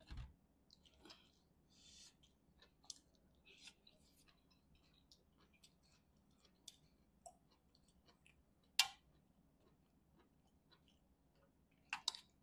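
Faint eating sounds from fingers working through chicken curry on a steel plate, with chewing: scattered wet clicks and smacks, the sharpest about nine seconds in and a few more close together near the end.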